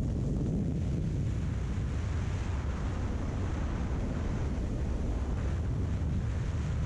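Wind buffeting the microphone on a moving motorcycle: a steady low rumble.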